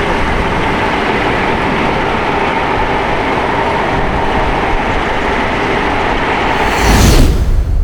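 Boeing 747-8F's GEnx jet engines at takeoff power, a steady loud roar with faint whining tones in it. About seven seconds in, a brief louder rush with deep rumble swells up, then the sound cuts off.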